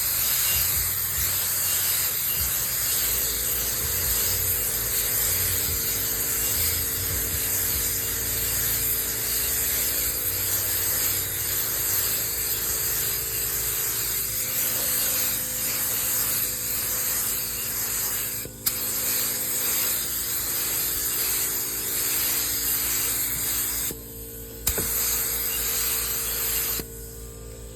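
Harbor Freight HVLP spray gun hissing steadily as it sprays clear coat, in long passes that break off briefly twice near the end and stop shortly before the end. A steady low hum joins about three seconds in.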